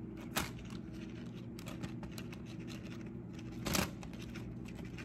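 Seasoned rutabaga fries sliding out of a plastic bowl into a zip-top plastic bag: quiet rustling of the bag with light taps, two sharper taps about half a second in and nearly four seconds in.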